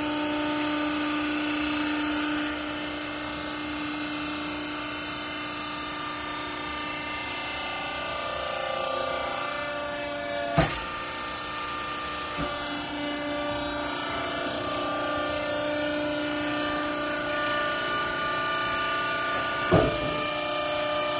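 Hydraulic clothes baler's electric motor and pump running with a steady whine. Its pitch shifts slightly a few times, and two sharp knocks come about halfway through and near the end.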